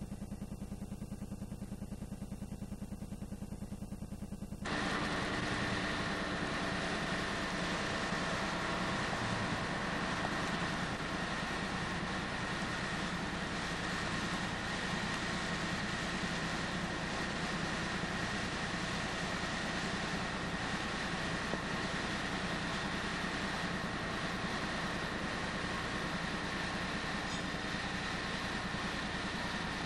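A low buzz pulsing evenly for the first few seconds, then, about five seconds in, a steady hiss with faint constant tones. It is the background noise of a home camcorder tape, with no distinct sound event.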